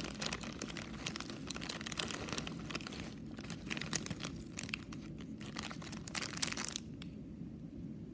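Thin clear plastic bag of cardboard jigsaw puzzle pieces crinkling as hands work it open and tip the pieces out. The crinkling stops about seven seconds in.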